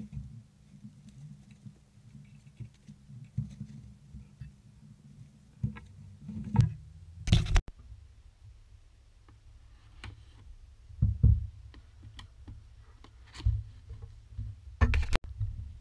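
Cardboard box handled close to the microphone: rubbing and scraping, broken by a few sharp knocks and taps, the loudest about seven seconds in and again near the end.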